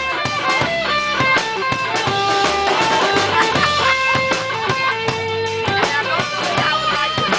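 Live reggae-rock band playing: electric guitar with a melody of held notes over a steady drum-kit beat.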